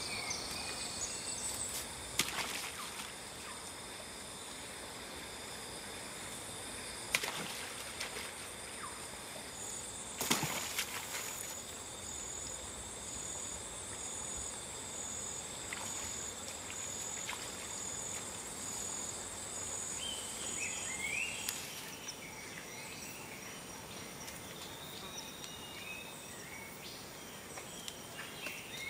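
Rainforest ambience: insects keep up steady high-pitched buzzing and trilling, with short bird calls near the end. A few sharp snaps stand out in the first half.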